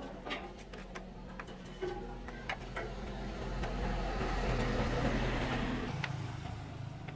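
A motor or engine runs with a steady low hum, growing louder toward the middle and easing off near the end. A few sharp knocks sound in the first three seconds.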